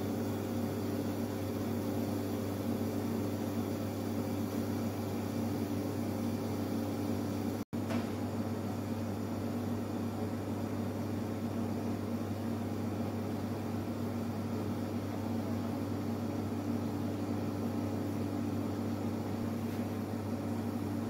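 Steady mechanical hum of kitchen equipment: a low drone with several steady tones above it. It cuts out for an instant about eight seconds in.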